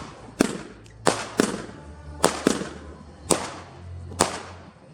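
Consumer fireworks cake with 20 mm tubes firing crossette shots that split in the air. About seven sharp bangs come at uneven gaps of half a second to a second, each trailing off in a short echo.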